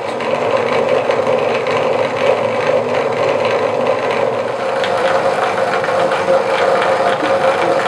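Corded power drill running steadily, turning the reel of a radial honey extractor through a 3D-printed coupling with a captured bearing on the axle. Its steady hum carries a fast, fine mechanical rattle from the spinning drive.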